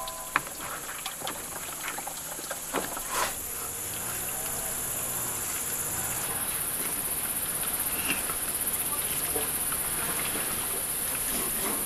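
Steady high-pitched insect chorus, with a few light taps and knocks. A second, lower strand of the chorus drops out about six seconds in.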